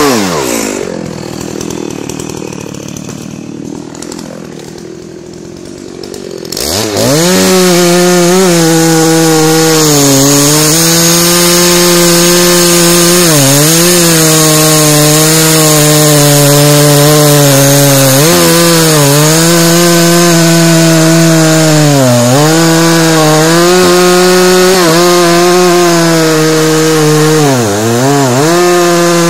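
Dolmar 7900 two-stroke chainsaw cutting into a large, very hard beech trunk. It drops off the throttle right at the start and runs quietly for about six seconds. It then revs back up and runs at full throttle in the cut, its pitch sagging and recovering every few seconds as the chain bogs under the load.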